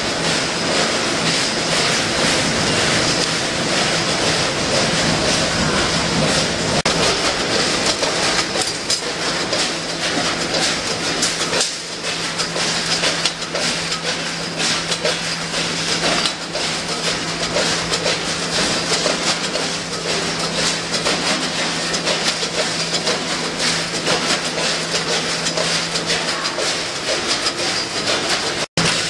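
Multihead weigher and vertical bagging machine running at speed for snack chips: a dense, continuous mechanical clatter of hopper gates and falling product over a steady low hum.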